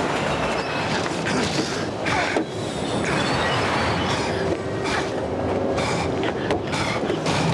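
A subway train running, heard from inside the car: a steady, loud noise of the moving train, with a faint steady squeal of the wheels joining about halfway through.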